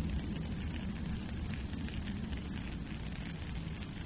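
Steady rain falling on a puddle and wet gravel, a dense patter of drops over a steady low rumble.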